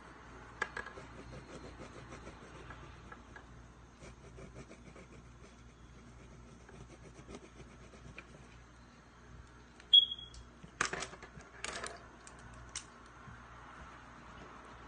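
Pen or marker scratching and rubbing on paper while drawing, with a short high squeak about ten seconds in and two brief scratchy bursts just after it.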